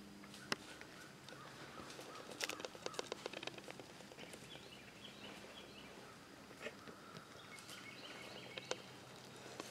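Quiet woodland ambience: faint bird chirps, with a short cluster of soft rustles and crackles in dry leaf litter about two and a half seconds in.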